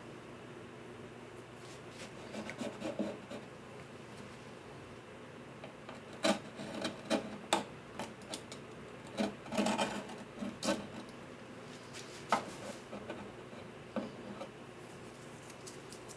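Irregular bursts of hand rubbing and scraping on wood, a few short strokes at a time with pauses between, as in hand-sanding or filing guitar parts.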